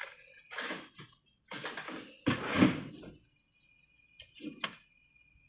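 Handling noises as batteries are got out: several short rustles and knocks, the loudest about two and a half seconds in.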